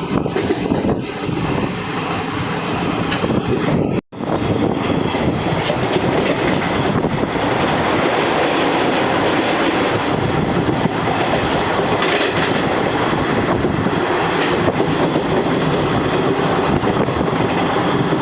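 A train running past, a loud steady noise of wheels rolling on the rails, with a brief cut-out in the sound about four seconds in.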